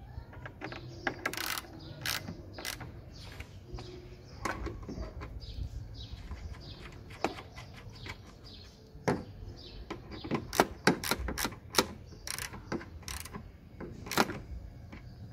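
Small hand socket ratchet clicking in short runs of strokes as it turns the headlight's mounting bolts.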